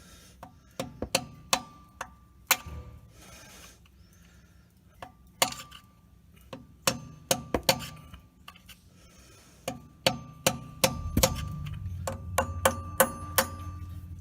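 A heavy hammer striking a screwdriver wedged into a stuck part under a truck, metal on metal, in irregular runs of blows with pauses between. Many of the blows leave a short metallic ring.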